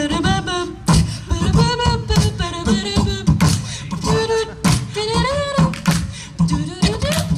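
Live beatboxing: a steady beat of mouth-made kicks and snares, with wordless scat-style vocal notes sliding up and down over it.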